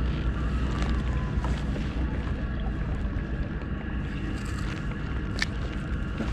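Wind buffeting the camera microphone over choppy water lapping around a kayak. A single sharp click comes about five seconds in.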